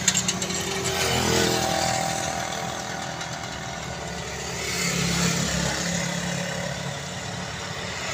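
A motor vehicle's engine running steadily, with its tone wavering up a little about a second in and again around five seconds.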